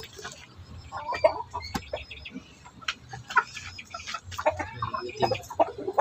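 Backyard chickens clucking in short, scattered calls, with a few sharp taps between them.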